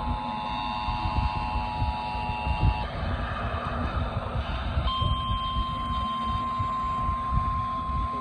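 Emergency Alert System alert tones: a steady chord of several high tones until about three seconds in, then after a short gap a single steady tone from about five seconds in. A low, uneven rumbling noise runs underneath.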